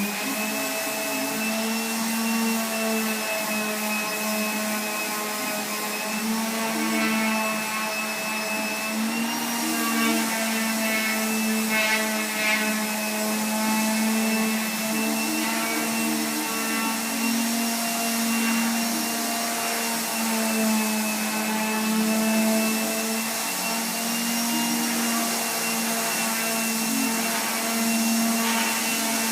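Electric power sander running steadily while sanding wood: a constant motor hum with a high whine.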